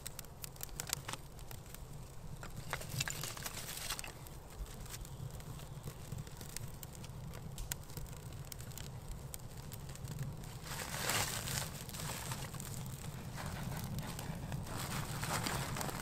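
Small stick fire crackling in a ground-oven pit, with scattered sharp pops, as dry sticks are fed onto it. A longer rustle of sticks being handled comes about eleven seconds in, and another near the end.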